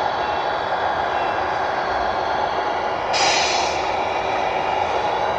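Simulated diesel engine running steadily from a 1/14-scale RC tractor truck's sound unit. About three seconds in there is a short burst of hiss.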